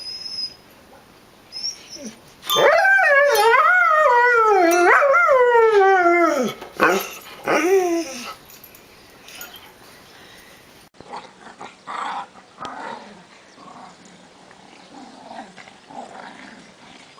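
A dog howling: one long call about four seconds long whose pitch wavers and falls, followed by two short yelps. After that come only faint sounds.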